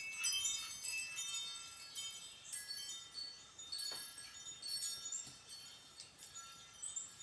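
Chimes ringing: many high, clear metallic tones struck in quick succession and overlapping, thinning out toward the end.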